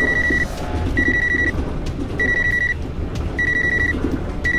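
A cordless phone in a train cab ringing unanswered, with short high electronic beeps about once a second, five in all. Under it runs the steady low rumble of the moving train.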